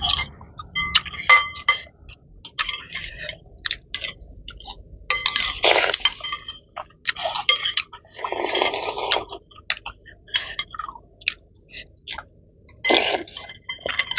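Metal spoons and forks clinking and scraping against glass bowls, with short ringing clinks again and again. Two longer bursts of noodle slurping come a little past the middle.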